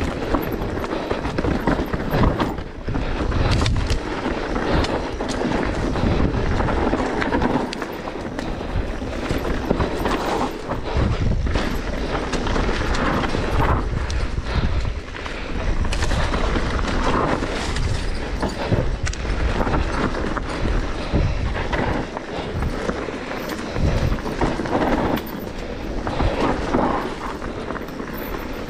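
Specialized Turbo Levo electric mountain bike riding fast down a rough enduro trail: a continuous clatter of tyres, chain and suspension over the ground, with frequent knocks from impacts and a heavy wind rumble on the microphone.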